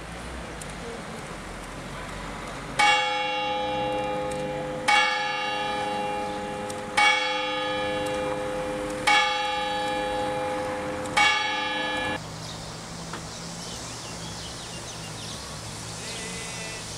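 A church tower bell struck five times on the same note, about two seconds apart, each stroke ringing on until the next. The ringing cuts off suddenly after the fifth stroke.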